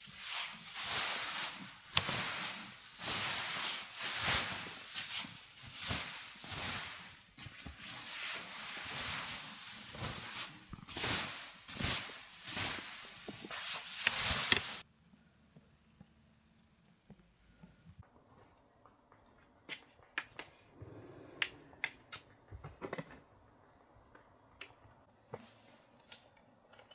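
Snow being swept off a tent's nylon fabric: repeated scraping swishes, roughly one a second, that stop abruptly about halfway through. Then a quiet stretch with a few small clicks and taps.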